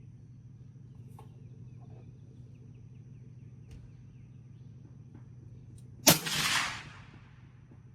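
A single shot from a Fierce Firearms Carbon Rogue rifle in .22 Creedmoor about six seconds in: a sharp crack with a report that rolls away over about a second. Before it, only a faint steady low hum.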